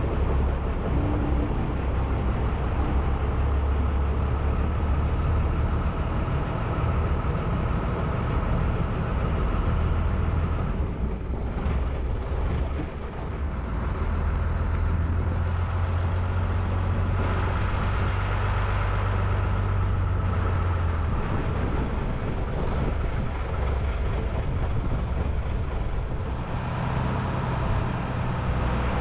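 A boat's engine running steadily under way, its pitch shifting up and down a few times.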